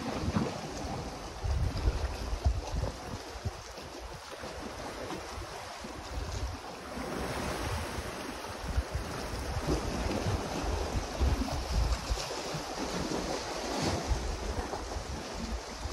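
Sea waves washing and splashing against the rocks below, with wind gusting over the microphone.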